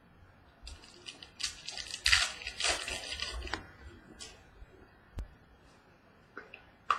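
Trading card packaging being torn open: a few seconds of crinkling, tearing rustles, loudest about two seconds in, then a single sharp click about five seconds in.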